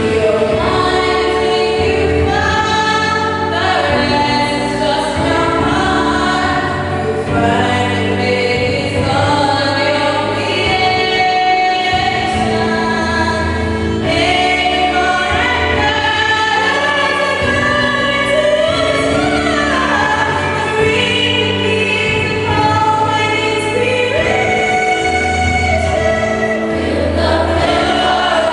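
A young solo singer amplified through a handheld microphone, with a choir singing behind and steady low accompaniment notes; long held and gliding sung notes, continuous throughout.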